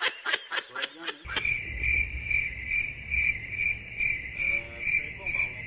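A short burst of laughing, then crickets chirping: a steady, even chirp pulsing about twice a second that starts abruptly about a second in.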